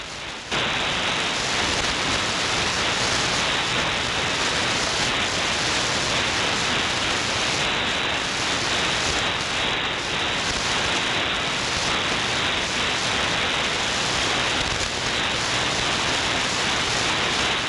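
Steady shortwave static hiss from an SDRplay RSPdx receiver tuned to 6065 kHz in the 49 m band, setting in about half a second in. The station on that frequency is very, very weak and is lost in the noise.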